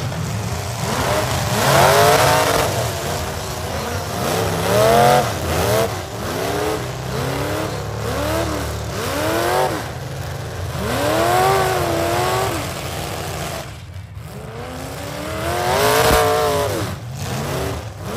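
Economy V8 demolition derby cars with their engines revving hard, the pitch swinging up and down in repeated swells, several engines at once.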